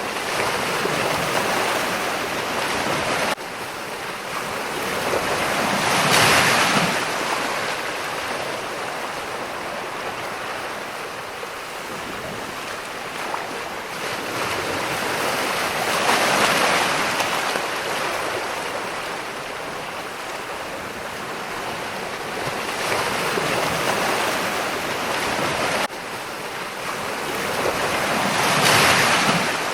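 Ocean surf: waves breaking and washing in slow swells that build and fade every several seconds. The level drops suddenly twice.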